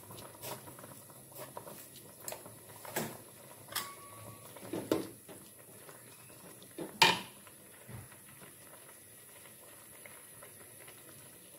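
Metal spatula knocking and scraping against an aluminium wok while stirring a coconut-milk vegetable soup: scattered clinks and knocks, the loudest clank about seven seconds in.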